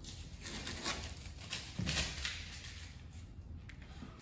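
Masking tape being peeled off a vinyl graphic and the van's panel: a series of short, soft rustles of the paper tape.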